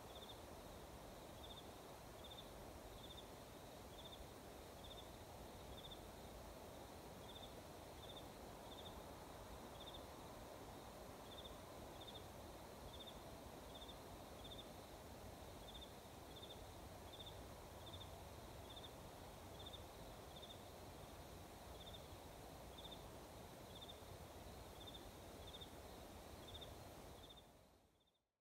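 Faint outdoor quiet at dusk with a single insect chirping, short high chirps at one steady pitch about twice a second, some in pairs; fades out near the end.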